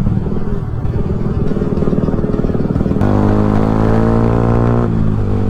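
Yamaha R15's single-cylinder engine running through an Akrapovic full-system aftermarket exhaust, very loud. It is uneven for the first few seconds, then holds a steady note for about two seconds before falling off near the end.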